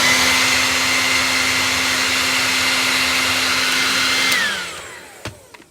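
Handheld hair dryer blowing steadily with its motor whine, then switched off about four seconds in, the whine falling in pitch as the motor spins down and fades.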